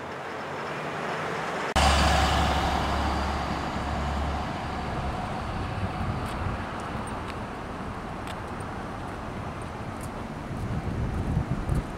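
Street ambience that cuts in loudly about two seconds in: road traffic with a heavy low rumble for a few seconds, settling into a steady traffic hiss with a few faint clicks. Near the end, wind buffets the microphone in low rumbles.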